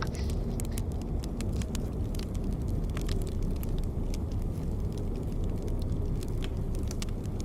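A large fire burning: irregular crackles and pops over a steady low rumble.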